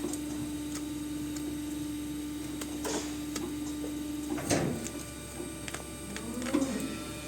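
A machine's steady low hum with scattered light clicks, cutting off about four and a half seconds in at a louder knock.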